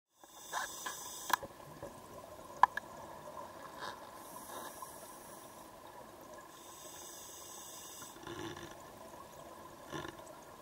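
Scuba regulator breathing underwater: hissing inhalations alternating with bubbling exhalations. A few sharp clicks come in the first three seconds, the loudest about two and a half seconds in.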